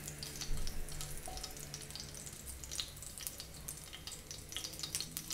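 Cut dried red chillies frying in a little oil in a nonstick kadai: a steady sizzle with scattered small pops and crackles.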